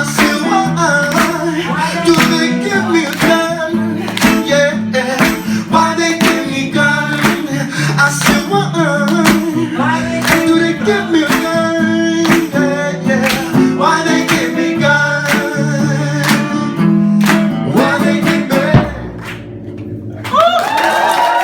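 A live band plays a song with strummed acoustic guitar and singing, which stops about nineteen seconds in. Audience cheering starts near the end.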